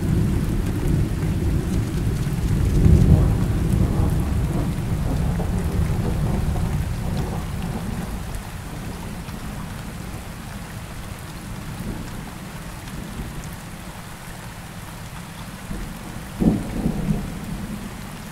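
Heavy rain with thunder: a long low roll of thunder swells to its loudest about three seconds in and fades over the next several seconds, leaving steady rain. A sudden louder rumble breaks through near the end.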